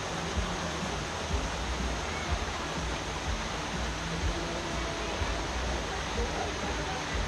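Wind buffeting the microphone: a steady rushing hiss with uneven low rumbles throughout.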